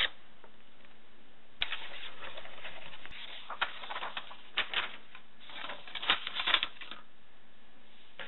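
Paper and packaging being handled: a steady rustle lasting about a second and a half, then a run of short crisp crackles and taps.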